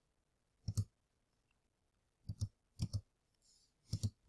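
Double-clicking on a computer: about four quick pairs of sharp clicks as files are opened.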